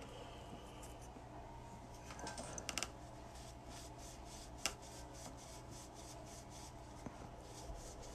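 Faint steady low hum with a few light taps and clicks: a short cluster about two and a half seconds in and a single sharper click near the middle.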